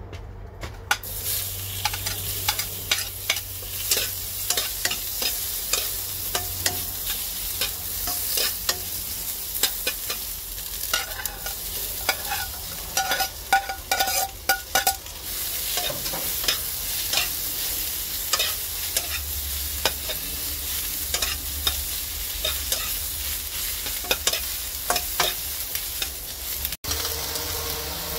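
Vegetables sizzling in hot oil in a black wok, starting about a second in, with a metal spoon scraping and clicking against the wok and plate; a run of ringing clinks comes around the middle.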